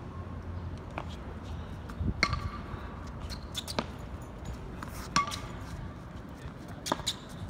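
A pop-tennis ball hit back and forth with frying pans used as paddles: sharp knocks roughly every one and a half seconds, several with a short metallic ring from the pan.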